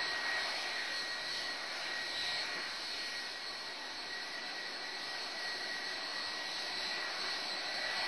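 Boeing 757-200 jet engines running as the airliner taxis, a steady whine with two high tones over a broad rushing noise. The sound starts abruptly at the beginning and grows slightly louder near the end.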